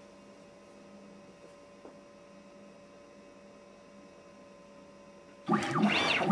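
Faint steady electrical hum. About five and a half seconds in, the DIY CNC machine's axis stepper motors start up loudly, whining in glides that rise and fall in pitch as the engraving head moves.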